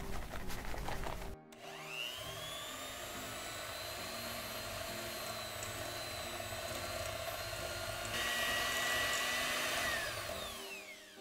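A white electric hand mixer starts about a second and a half in with a rising whine and runs steadily, its beaters creaming softened butter with powdered sugar in a glass bowl. Its sound changes around eight seconds in, and it winds down with a falling whine near the end.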